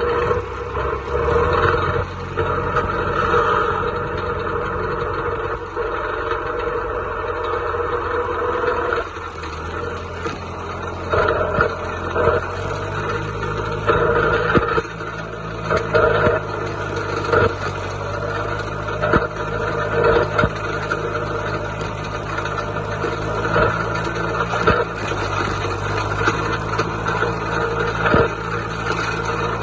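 John Deere 2130 tractor's three-cylinder diesel engine running; its note steps up and grows fuller about twelve seconds in, with scattered clanks and rattles over it.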